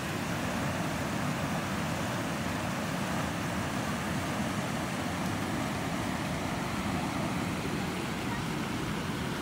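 Steady rushing of a fast mountain river running over a riffle of shallow white water.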